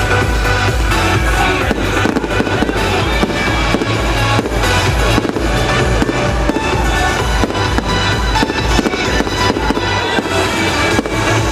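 Fireworks display: a dense, continuous string of bangs and crackles over loud music with a steady bass beat.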